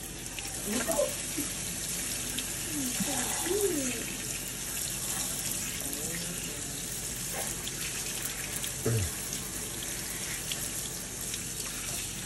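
Kitchen faucet's pull-down spray head running, water spraying steadily onto a wet capuchin monkey and splashing into the sink. A soft knock about nine seconds in.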